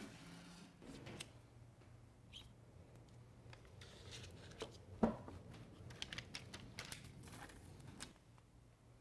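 Faint handling sounds of mastic tape being unrolled and laid along a steel roof panel: soft rustling and crackling with scattered light clicks, and one sharper knock about five seconds in.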